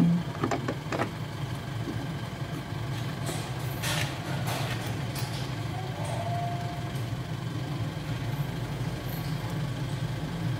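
A steady low mechanical hum like an idling engine, with a few light clicks and knocks as a clutch master cylinder is handled and pushed into place on a car's firewall.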